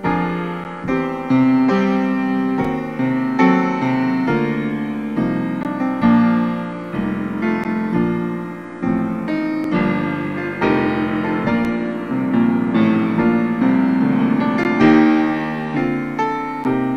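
Yamaha grand piano played solo: a continuous run of struck notes and chords, each ringing and fading as the next is played.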